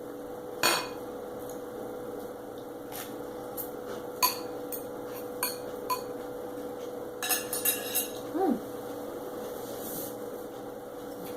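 Cutlery clinking against a plate in scattered sharp clicks, with a quick cluster of clinks about seven to eight seconds in. A short falling squeal comes just after that cluster.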